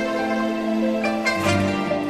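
Instrumental interlude of a slow Chinese ballad: soft sustained notes with plucked strings, and new notes entering about one and a half seconds in.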